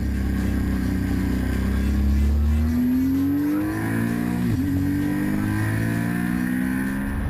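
Horex VR6's 15-degree V6 engine pulling under acceleration as the motorcycle is ridden. Its pitch climbs for the first couple of seconds, dips briefly about four and a half seconds in, then holds steady.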